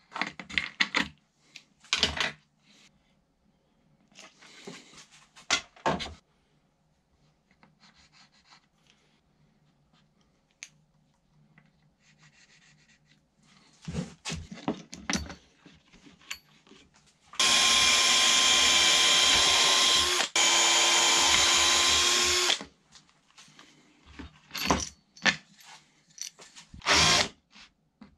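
Cordless drill running into a wooden panel in one steady run of about five seconds, with a brief break near the middle. Shorter knocks and clicks of tool handling come before and after it.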